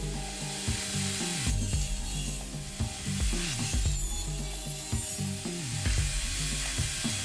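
Table saw cutting short pine boards: a busy mechanical rattle, with two spells of hissing cutting noise as the wood passes through the blade.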